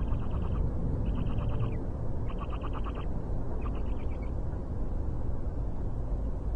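Owlets calling in the nest: four short, high, stuttering calls in about four seconds, each made of rapid pulses. A steady low rumble runs underneath.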